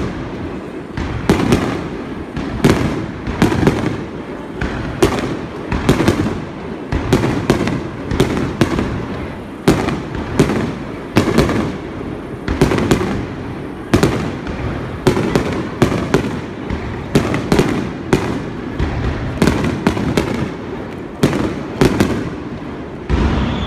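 Aerial fireworks finale: a rapid, continuous barrage of shell bursts, sharp bangs coming more than once a second with rumbling echo between them.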